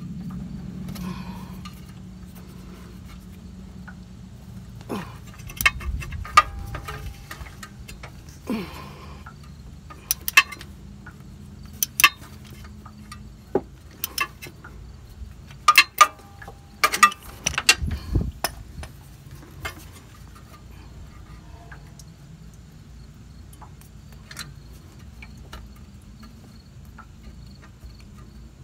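A 12 mm wrench clicking and clinking against the engine block coolant drain bolt and nearby metal as the bolt is loosened, in irregular sharp clicks, most of them between about five and twenty seconds in, over a steady low hum.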